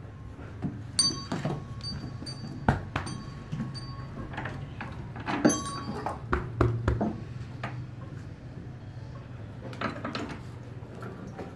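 Small metal bell on a calf's neck clinking several times as the calf moves, with a few dull knocks in between.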